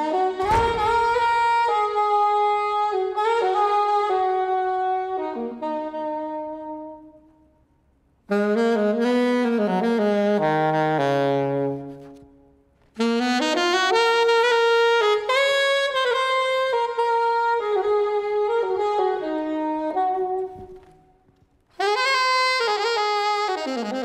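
Unaccompanied saxophone playing a melody in long phrases. Three times a phrase ends and the sound dies away over a second or two before the next phrase begins.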